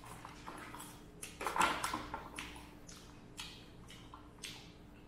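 A person eating close to the microphone: a run of short crunchy, rustling noises, the loudest cluster about one and a half to two seconds in, over a faint steady hum.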